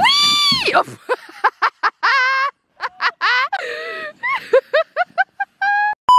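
A person's high-pitched scream while sledding, rising and falling in pitch for under a second. It is followed by a string of short, high, chirpy vocal sounds over dead silence, an edited-in effect. Right at the end, the steady beep of a colour-bar test tone begins.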